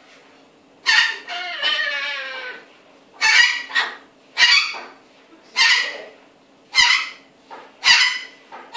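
A cockatoo calling: one drawn-out, wavering call about a second in, then five short harsh squawks, about one a second.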